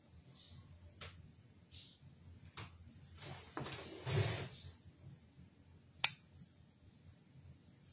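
Faint room sounds: scattered small clicks, a louder rustling noise about midway, and one sharp click about six seconds in.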